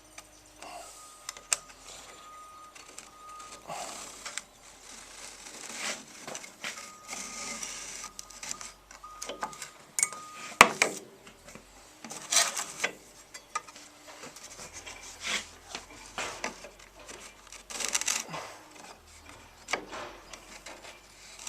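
Hand-handling of wood and tools: scattered knocks and clicks with rough scraping and rubbing of wood, and a faint thin whine that comes and goes.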